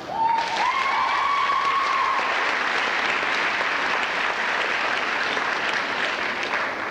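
An audience breaks suddenly into applause, which keeps on steadily. Over the first two seconds one long, high-pitched call rises slightly in pitch above the clapping.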